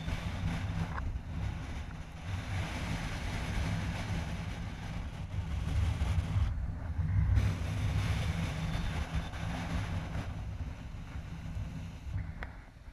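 Wind buffeting the microphone over a low, steady engine idle.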